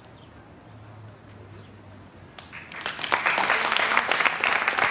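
Faint low hum, then about two and a half seconds in an audience starts applauding, and the clapping quickly grows full and keeps going.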